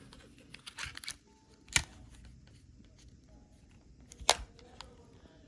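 Handling and button clicks from a Samsung SPH-N400 phone: a few light clicks, then two sharp clicks about two and a half seconds apart, with a brief faint tone shortly after the first second.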